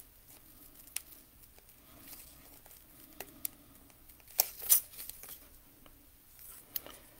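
A stack of trading cards being handled and flipped through by hand: scattered light card flicks and rustles, the loudest pair a little past the middle.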